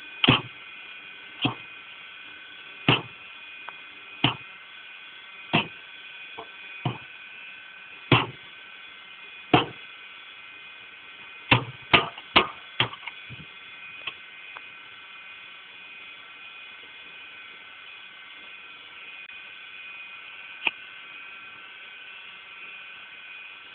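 Electric cement mixer running with a steady whine. Over it come sharp knocks about every second and a half, a quick run of four near twelve seconds, then a single knock about twenty seconds in.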